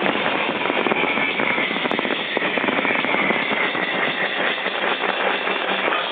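Fireworks display: dense, continuous crackling and popping with a loud steady roar underneath, and a high tone slowly falling in pitch through it.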